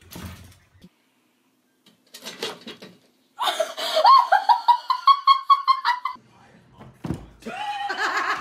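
High-pitched laughter in two long bouts of rapid, pulsing 'ha-ha' bursts, the first starting about three and a half seconds in and the second near the end.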